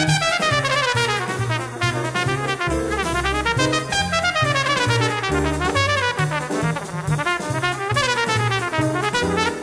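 Hard bop jazz recording: a trumpet solos in fast runs that climb and fall, over a walking bass line and drums.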